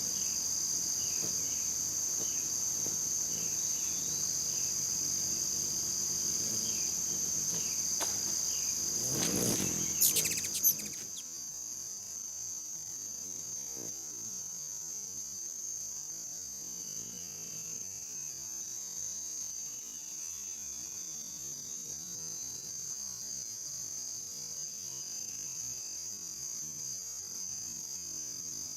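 Steady chorus of crickets and other insects, several constant high-pitched trills layered together. A few faint short chirps in the first several seconds, and a brief louder disturbance about ten seconds in, after which the lower background noise falls away.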